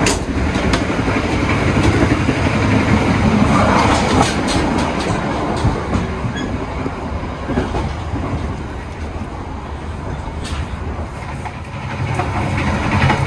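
Passenger train running, heard from inside a carriage: a steady low rumble of wheels on track, with occasional sharp clicks and clanks.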